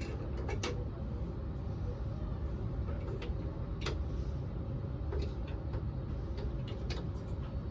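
Scattered light clicks of AA batteries being pressed into the plastic battery compartment of a smart deadbolt lock, over a steady low background rumble.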